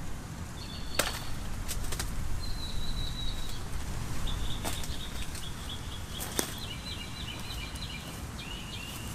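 Knife chopping through the stalk of a banana blossom: a handful of sharp, separate cuts spread over several seconds, with high chirping in the background.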